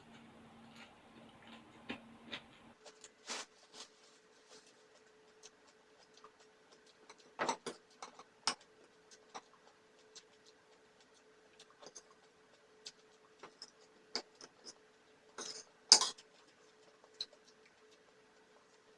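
Close-miked mukbang eating sounds: scattered small clicks and taps of chewing and cutlery on dishes, with two louder clatters about 7 and 16 seconds in, over a faint steady hum.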